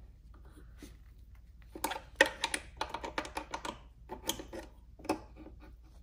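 Hand-turned Allen key and screw clicking and rattling as a screw is tightened into a go-kart's plastic frame: several quick clusters of small clicks from about two seconds in, after a quieter start.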